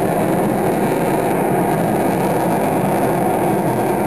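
Avro Vulcan bomber's jet engines heard high overhead: a steady, unbroken rush of engine noise.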